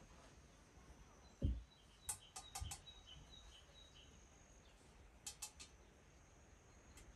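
Quiet outdoor background with faint bird chirps. A dull knock about one and a half seconds in, then two quick runs of light clicks, as tea glasses and dishes are handled on a wooden table.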